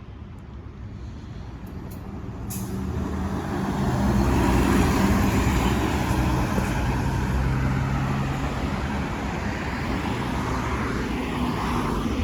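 A Fairfax Connector transit bus's diesel engine approaching, growing louder over the first four seconds and then staying loud. There is a short hiss of air about two and a half seconds in.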